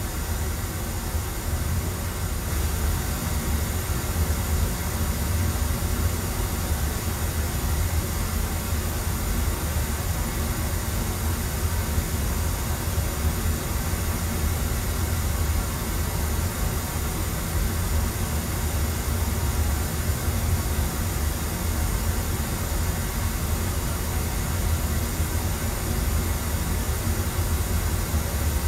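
Pink noise played through a PA system as the test signal for room EQ: a steady, unbroken hiss with extra weight in the deep bass, where the EQ curve is boosted.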